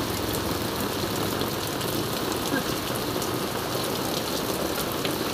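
Heavy rain falling steadily onto a wet asphalt road: a dense, even hiss with many small drop splashes scattered through it.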